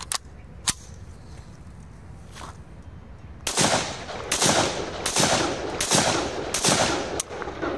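MP5-pattern 9 mm pistol firing about six single shots, a little under a second apart, each with a trailing echo. Before that come a couple of sharp metallic clicks as the cocking handle is worked.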